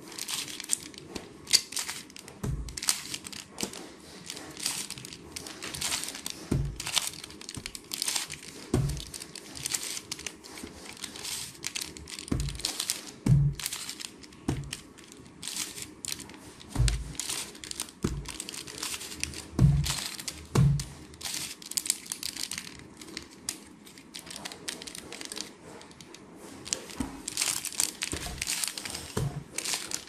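Stickerless plastic 3x3 Rubik's cube being turned by hand: quick, irregular clicking and clacking of the layers as moves are made, with a dull knock every few seconds.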